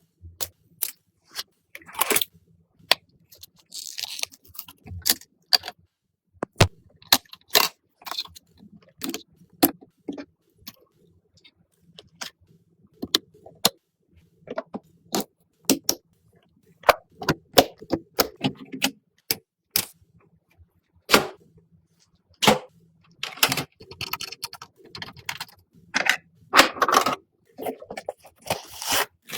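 Irregular clicks, taps and short scrapes of computer parts being handled and fitted together during a PC build.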